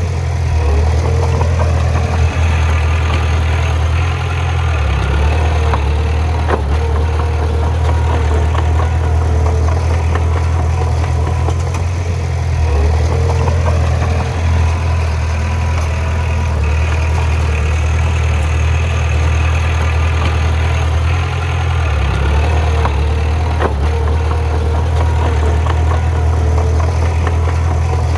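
Bulldozer's diesel engine running steadily, with a deep low hum and shifting mid-pitched engine tones.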